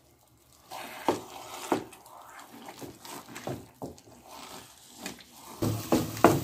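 Wooden spoon stirring thick, sticky semolina halwa in a pan, an irregular run of soft wet squelches, scrapes and knocks that starts after a brief silence and gets a little louder near the end. The halwa is being stirred continuously as it cooks down until the ghee separates.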